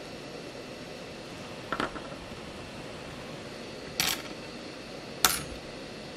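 858D hot air rework station blowing a steady airy hiss at full airflow, with three sharp, light clicks: about two seconds in, four seconds in and five seconds in.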